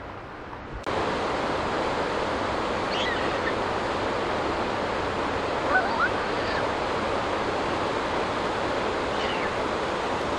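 Steady rushing of water, like a fast stream, starting abruptly about a second in, with a few faint short whistling calls that rise and fall over it.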